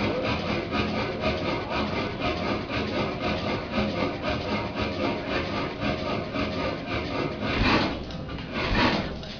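35 hp Columbus Camstopper hit-and-miss engine coasting between firing strokes: a fast, even rasping clatter from the turning engine, with two louder swells near the end.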